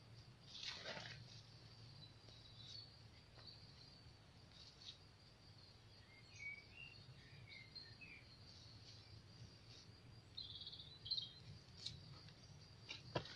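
Faint summer garden ambience: a steady high chirring of insects, with a few bird chirps about six to eight seconds in. Soft rustles of radish leaves being handled and pulled come about a second in and again near the end.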